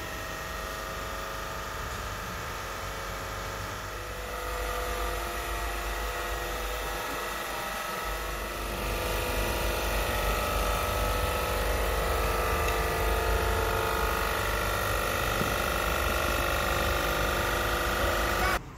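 Refrigeration plant machinery running: motor-driven circulation pumps and a Sabroe screw compressor give a steady hum with several steady whining tones over a low rumble. It gets louder about four seconds in and again about nine seconds in, and cuts off abruptly just before the end.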